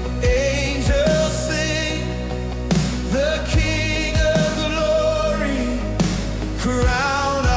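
Worship pop song: a voice holding long notes with vibrato, no words made out, over a sustained bass and kick-drum beats.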